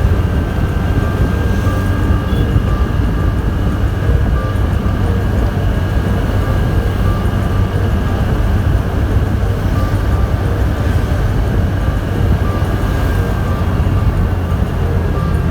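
Steady low rumble of road and engine noise from a moving vehicle, unbroken throughout.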